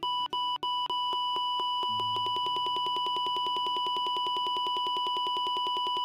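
Metal detector beeping in a high electronic tone. The short beeps come faster and faster, and about a second in they merge into one long steady tone, the detector's signal for metal under the coil.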